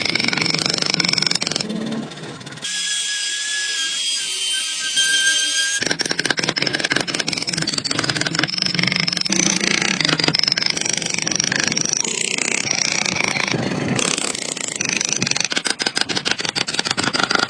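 Woodworking tool noise, with a steady high-pitched whine from about three to six seconds in.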